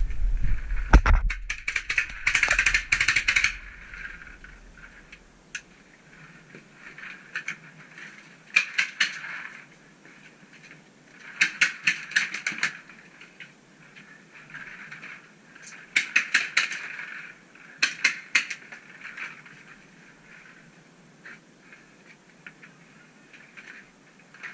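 Paintball markers firing in bursts of quick pops, several volleys a few seconds apart. Low thuds sound in the first few seconds.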